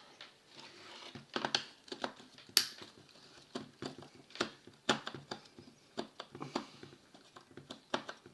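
Irregular clicks, taps and light rattles of hard plastic power-tool casing and small parts being handled and unscrewed during a teardown, with a faint rustle between them and one sharp click about two and a half seconds in.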